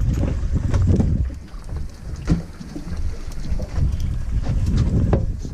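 Wind buffeting the microphone aboard a fishing boat at sea: a gusty low rumble, heaviest in the first second or so, with a few small clicks scattered through it.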